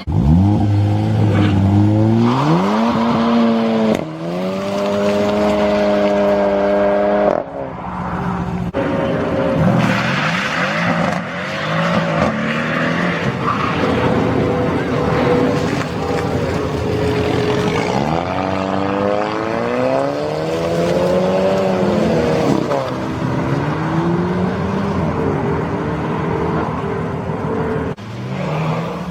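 Modified cars' engines accelerating hard and revving, one after another, the pitch climbing steeply, holding high, then dropping off. Another strong climb-and-fall comes about two-thirds of the way through.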